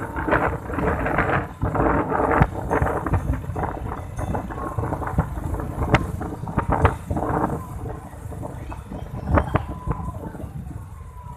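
Wind buffeting the microphone over a low rumble, with scattered sharp knocks and clicks. It is loudest in the first couple of seconds and gradually eases off.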